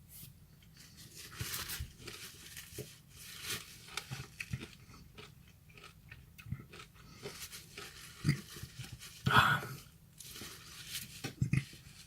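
Close-up wet chewing and biting of raw lemon flesh, a run of irregular short mouth noises, with one louder mouth noise about nine seconds in.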